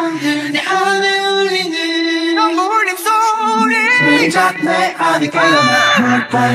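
Male pop-group vocals sung a cappella, the instrumental backing removed: sustained, melismatic sung notes, with two or more voices overlapping in harmony in places.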